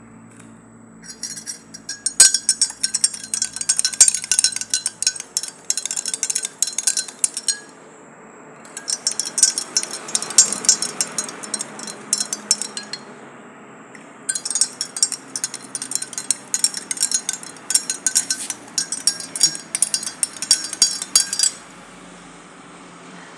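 A metal spoon stirring in a drinking glass, clinking rapidly against its sides in three bouts of several seconds each, with short pauses between.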